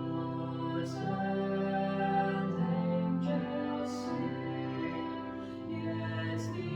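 A slow hymn: sustained keyboard chords with a singing voice, the notes changing every second or so.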